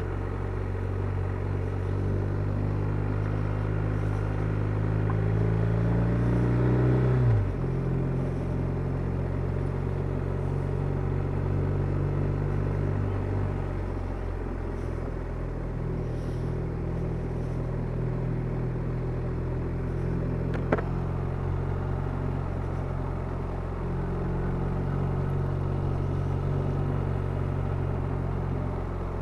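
A BMW R1250RT's boxer-twin engine running under way at low road speed: its revs climb for about seven seconds, then fall sharply and settle into a steady note. A single sharp click about twenty-one seconds in.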